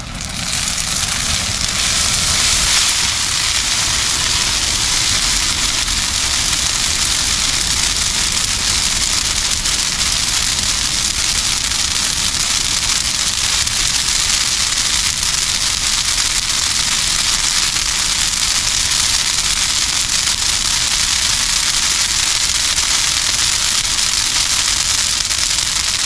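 Brush pile of leafy branches, soaked with diesel, catching and burning with a dense, steady crackle and hiss. The sound swells over the first second or two as the fire takes off, then holds steady and loud.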